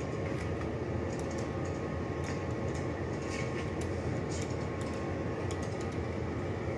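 Steady low rumble of machinery or ventilation filling the room, with light scattered ticks and rustles of pens and paper on the chart table.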